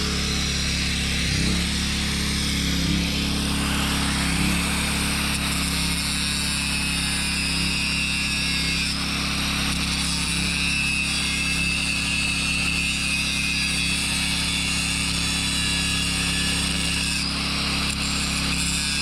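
Angle grinder running continuously as it cuts into a trailer kingpin lock. Its high whine dips and rises in pitch as the disc bites, over a steady low hum.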